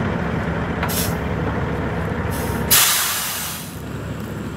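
Heavy wrecker tow truck's diesel engine running, then a loud burst of air hiss from its air brakes a little under three seconds in, fading over about a second.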